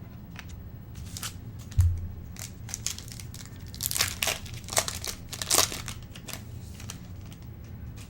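Trading-card pack wrapper crinkling and tearing as a pack is opened and the cards are handled, in short crackly bursts with the loudest about four and five and a half seconds in. A dull thump comes just under two seconds in.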